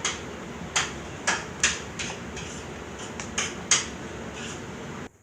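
Fluffy slime (shaving cream slime) being squeezed and stretched by hand, giving irregular sharp pops and crackles over a steady background hiss.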